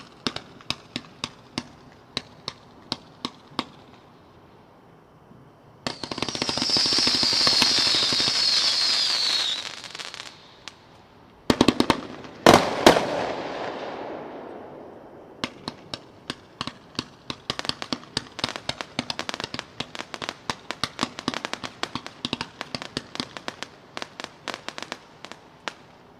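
Pigzilla 142-shot consumer fireworks cake firing: a run of sharp shots about two to three a second, then a dense hissing, crackling burst of a few seconds with a high whine. A handful of much louder bangs follow near the middle, then a quick volley of shots that thins toward the end.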